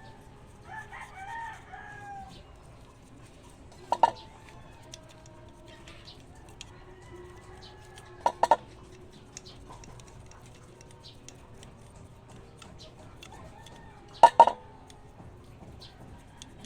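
A rooster crows faintly in the background. Sharp short knocks come about four seconds in, twice in quick succession around eight seconds, and again twice near the end, louder than the crowing.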